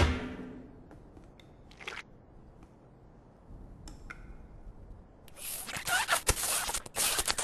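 Cartoon eating sound effects: a loud thump at the start, then after a few faint clicks a fast, dense run of crunching and chewing from about five seconds in as a frog's leg is gnawed.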